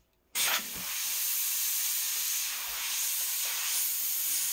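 Airbrush spraying paint: compressed air hissing through the airbrush. It starts suddenly a third of a second in with a brief louder spurt, then runs as a steady hiss.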